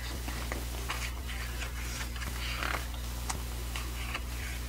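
Pages of a hardcover photo book turned by hand: several soft paper rustles and light clicks, over a steady low hum.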